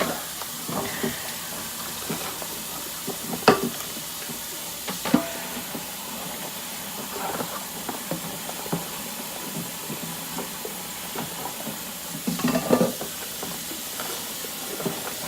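Kitchen tap running steadily into a sink while dishes are washed by hand, with dishes and pots clinking and knocking against each other twice early on and in a short clatter near the end.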